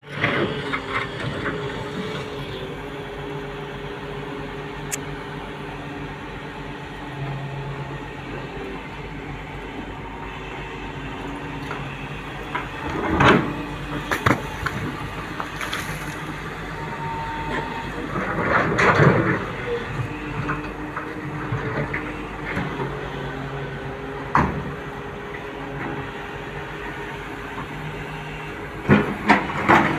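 Excavator diesel engine running steadily, its pitch shifting as the hydraulics are worked, with a few loud scraping, clanking bursts from the bucket and boom at work.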